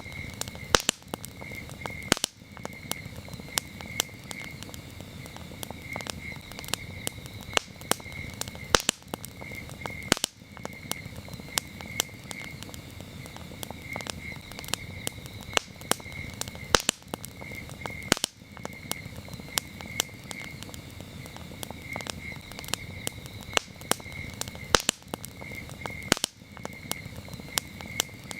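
Campfire crackling and popping over a low rush of burning wood, with louder pops coming in pairs about every eight seconds. Crickets chirp steadily in quick pulsed trills throughout.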